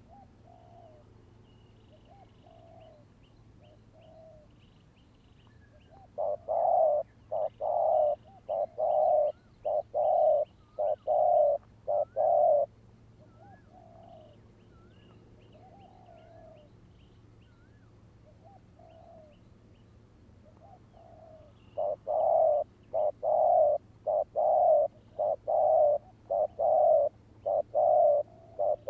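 Spotted doves cooing. A close dove gives two long runs of loud, rapidly repeated coos, the second starting about two-thirds of the way in. A farther dove answers with softer coos in between. Faint high chirps of small birds run underneath.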